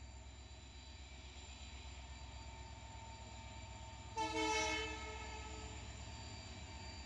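WDP4 diesel-electric locomotive (EMD two-stroke V16) approaching with a low, steady rumble that slowly grows louder. A single short horn blast of under a second comes about four seconds in and is the loudest sound.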